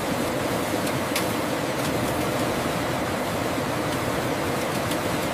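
Offset printing press running, a steady mechanical whir and rumble with a few faint ticks.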